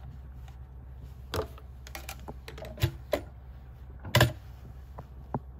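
Scattered, irregular mechanical clicks and knocks at an industrial walking-foot sewing machine as fabric and thread are worked by hand at the needle, over a low steady hum, with a louder knock about four seconds in. There is no run of steady stitching.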